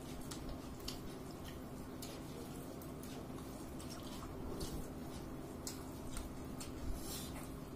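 People eating: scattered small clicks and wet smacks of chewing and handling food, over a steady low hum.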